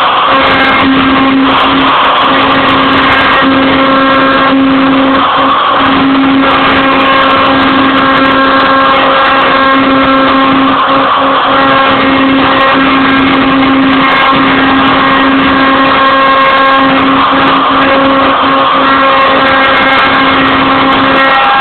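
Router spindle of a homemade CNC mill running steadily with a high whine while a 90-degree V-cutter carves, a rushing cutting noise underneath.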